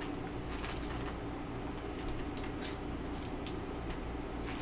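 Close-miked eating sounds: a plastic fork picking salad out of a styrofoam takeout container and crisp vegetables being chewed, heard as short, irregular crackles and clicks about once or twice a second over a steady low hum.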